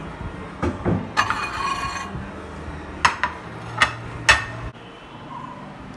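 A ceramic dinner plate scraping out across a microwave's turntable, then set down on a hard countertop with three sharp clinks over about a second and a half. A low hum underneath stops near the end.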